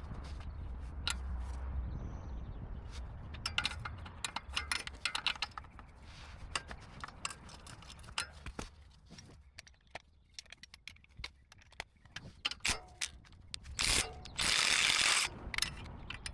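Half-inch-drive hand ratchet clicking while loosening tight exhaust bolts, with irregular clicks and tool clatter, then a louder, fast run of clicking near the end.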